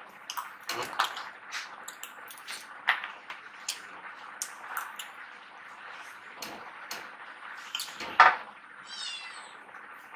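Metal spoons clicking and scraping in plastic ice-cream tubs as two people eat, in a scatter of short sharp clicks. About eight seconds in, a short loud call stands out above them, followed by a brief high rising call.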